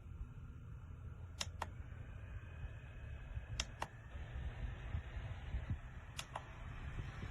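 Small battery-powered USB desk fan running with a low hum and a faint whine that slowly rises in pitch, interrupted three times by a sharp double click.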